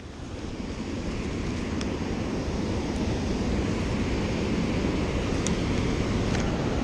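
Steady rush of water churning out below a dam spillway, mixed with wind buffeting the microphone, with a few faint ticks.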